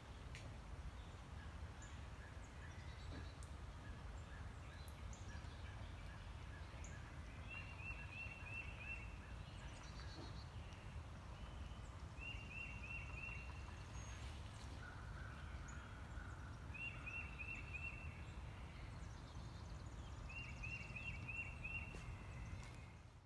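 A bird repeating a short, fast phrase of five or six quick notes about every four seconds, over a faint low rumble of outdoor ambience.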